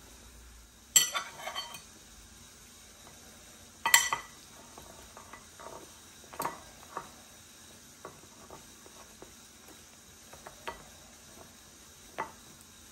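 Metal fork clinking and scraping against a bowl while slices of bread are turned and coated in beaten egg. Two sharp, ringing clinks about one and four seconds in, then lighter taps scattered through the rest.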